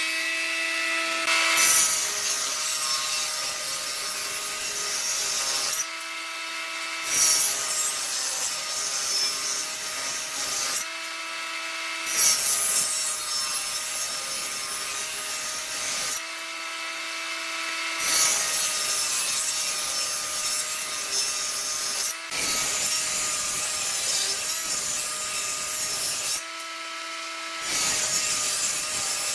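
Stationary woodworking machines, a thickness planer and a table saw, cutting wooden boards. Each board fed through makes a loud cutting noise lasting several seconds, and between passes there are short gaps where only the machine's steady idling whine is heard.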